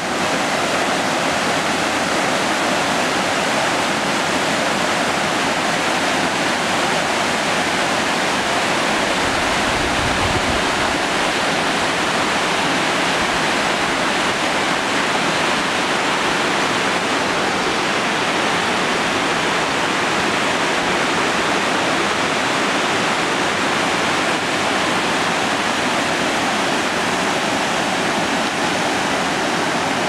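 River water rushing steadily over stones in shallow rapids, with a brief low rumble about ten seconds in.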